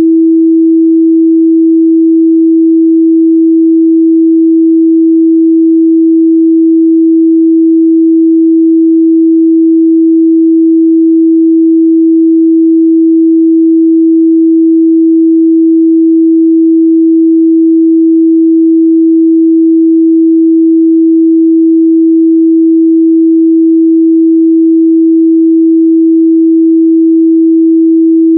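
Steady 326 Hz sine-wave test tone, held at one pitch and level without change.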